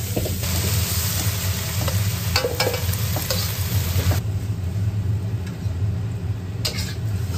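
Stir-fry sizzling in a wok, with the metal spatula scraping and clicking against the pan. A little past halfway the sizzle falls away as the wok comes off the heat and the food is scooped onto a plate, with a click of metal on the plate near the end. A steady low hum runs underneath.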